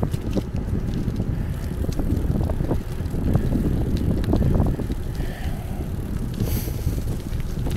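Bicycle riding along a street: steady low rumble of wind on the handlebar-mounted camera's microphone and tyre noise, with small clicks and rattles from the bike.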